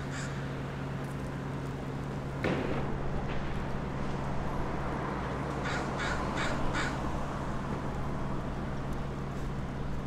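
American crow cawing: a quick series of four harsh caws about six seconds in, after the last call of an earlier series at the very start.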